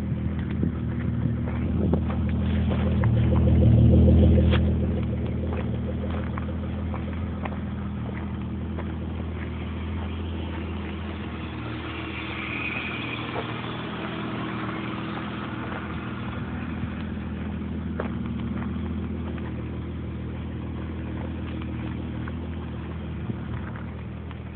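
Holden VS Commodore engine running steadily at idle, swelling once briefly about four seconds in.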